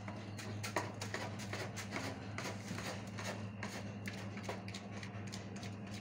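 Irregular light clicks and taps, several a second, as a cat shifts and rolls about on a metal wire cage floor, over a steady low hum.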